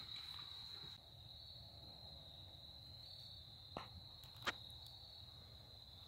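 Near silence with a faint, steady, high-pitched insect trill throughout, like a cricket. A faint hiss fades out in the first second, and two soft clicks come a little under a second apart about four seconds in.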